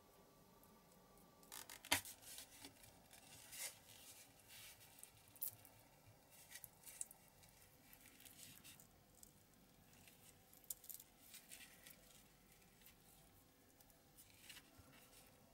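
Faint hand-handling sounds at a workbench: a sharp click about two seconds in, then scattered small crackles and rustles as a soft pink material is worked between the fingers.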